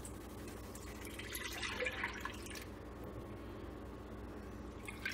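Milk being poured from a glass measuring cup into a pot of cooked roux: a short splashing pour about a second in, lasting about a second and a half.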